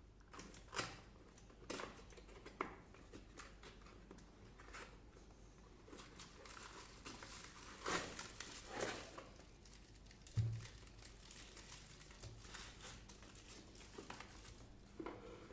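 Faint rustling of paper and packaging being handled, with a few louder handling noises and a soft thump about two-thirds of the way through.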